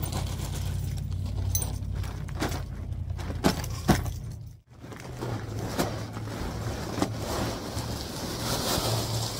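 Footsteps and sharp knocks on an asphalt-shingle surface close to the microphone, then the rustle of a plastic bag of gravel being lifted near the end, over a steady low rumble.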